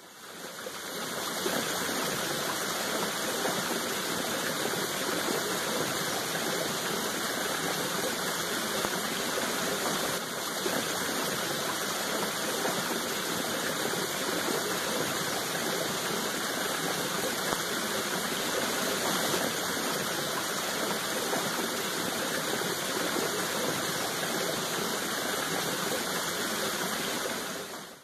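Waterfall on a river: a steady, even rush of falling water, fading in over the first second or two.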